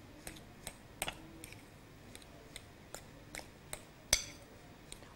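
Light, irregular clicks and taps against a glass mixing bowl as mashed potato and spices are mixed in it, about a dozen in all, with one sharper click about four seconds in.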